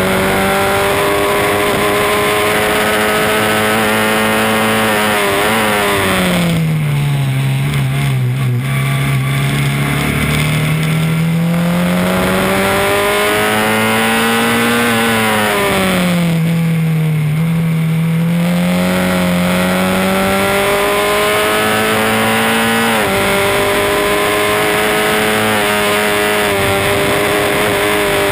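On-board sound of a Swift SC92 Formula Ford 1600 race car's four-cylinder Ford Kent engine at racing speed. It holds a high, steady note, then falls sharply twice, about five seconds in and again about fifteen seconds in, dropping to a lower, quieter note for a few seconds each time before climbing back up. This is lifting and braking for corners, then accelerating out.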